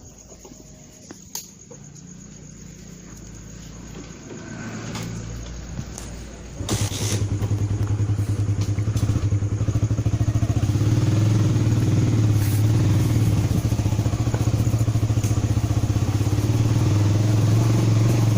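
A loud, steady low droning hum starts abruptly about a third of the way in and holds, wavering slightly, over a quieter faint hum before it. It is engine-like in character but its source is unidentified.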